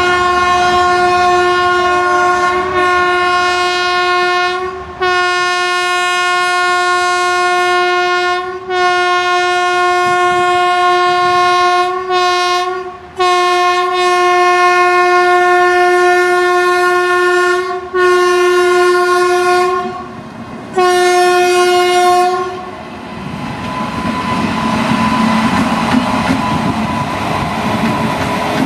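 Indian Railways electric locomotive's air horn sounding about eight blasts on one steady note, most of them several seconds long and one short. After the last blast a passing train's running noise follows.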